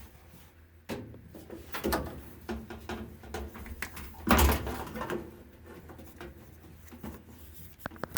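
Irregular clicks, knocks and rustles of hands working on a washing machine during a repair, with the loudest knock about four and a half seconds in.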